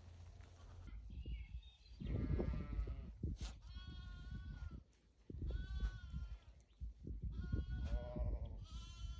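Sheep bleating, about five separate calls one after another, over low rumbling and rustling noise.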